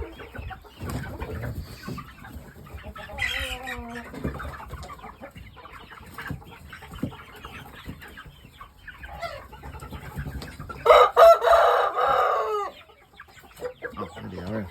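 Chickens clucking and calling, then a rooster crowing once near the end, the loudest sound, its call dropping in pitch as it finishes.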